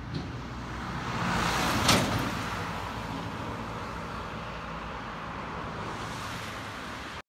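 A truck passes close by and drives away. Its engine and tyre noise swell to a peak about two seconds in, with a brief sharp clatter at the loudest point, then carry on more steadily as it moves off.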